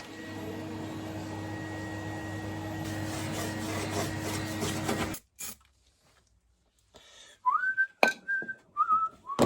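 A steady machine noise with a low hum runs and cuts off suddenly about five seconds in. After a short pause, a person whistles a few notes: a rising note, then short held notes near the end.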